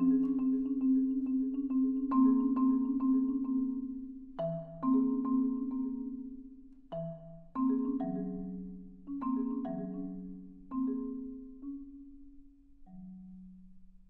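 Solo concert marimba played with mallets. A loud chord dies away, then come soft, widely spaced struck notes over held low notes, getting gradually quieter toward the end.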